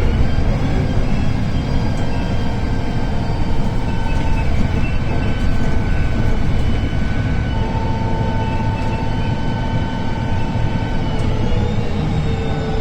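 VDL DB250 bus's diesel engine running under way with a steady high turbocharger whistle over its low rumble; the whistle's pitch slides near the end as the engine speed changes.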